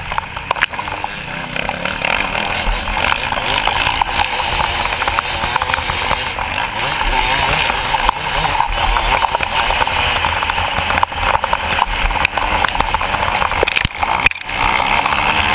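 Motocross bike engine running hard at race pace, heard from a camera mounted on the rider's own bike, with wind buffeting and knocks from the rough track. The sound drops out for a moment near the end.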